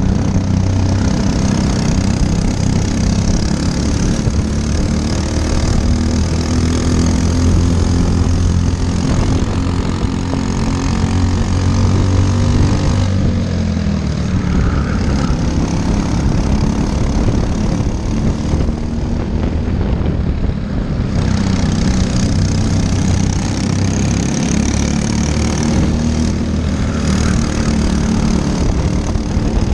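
Briggs & Stratton LO206 single-cylinder four-stroke kart engines running at racing speed, their pitch rising and falling as the karts slow for corners and accelerate out of them.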